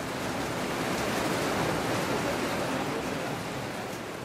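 An even rushing noise with no tone or rhythm in it, swelling over the first couple of seconds and fading away near the end.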